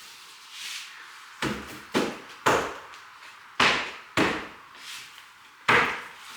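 Floorboards being knocked into place: six sharp knocks, in groups of two or three about half a second apart.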